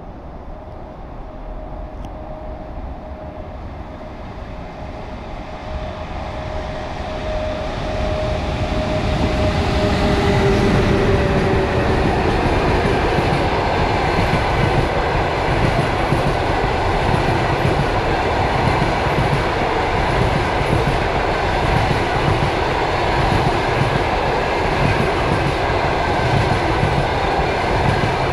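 A passenger express hauled by two EP1M electric locomotives approaches and passes. A steady hum from the locomotives drops in pitch as they go by, about ten seconds in, and the sound grows much louder. The coaches then roll past with a steady rumble and wheel clatter.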